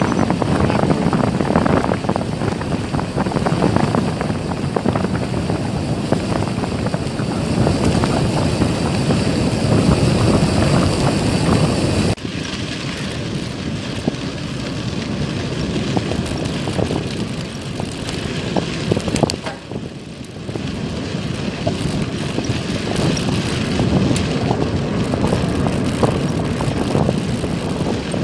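Wind buffeting the microphone and the rattle and rolling noise of a bicycle riding fast, a dense rushing noise that drops somewhat and suddenly about twelve seconds in.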